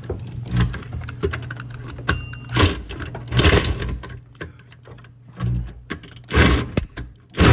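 Power drill cutting into the sheet-metal strut tower of a car, running with a steady hum while the bit repeatedly catches and grabs in the metal with loud irregular bursts.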